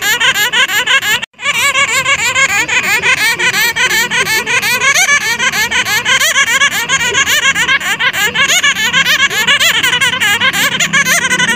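Many bats chattering and squealing together, a dense, continuous mass of short high squeaks and trills. There is one brief break about a second in.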